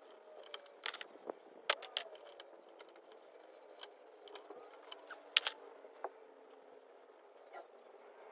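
Scattered sharp clicks and light metallic taps from hands working with electrical wires and a hand tool, at irregular intervals, over a faint steady background drone.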